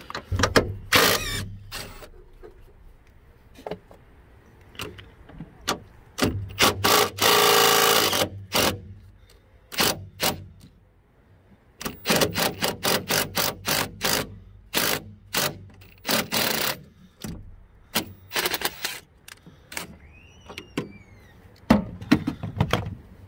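Cordless impact wrench hammering in short on-and-off bursts as it runs out the E14 bolts on the front strut's upper mount, with one longer run of rapid impacts about seven seconds in.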